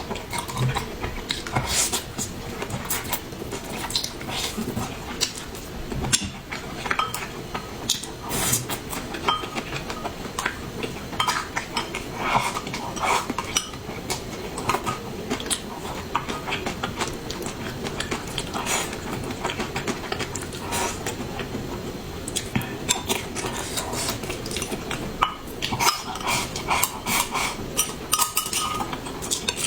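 Utensils clinking and knocking against dishes: many small, irregular clicks of tableware.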